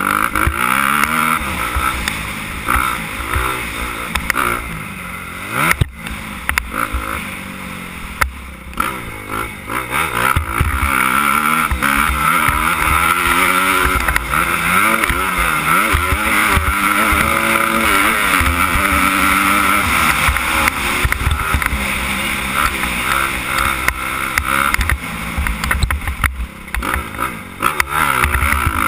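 Suzuki 250 motocross bike's engine revving up and down repeatedly as it is ridden hard over a dirt track, with heavy wind rumble on the helmet-mounted microphone. Two sharp knocks about six and eight seconds in.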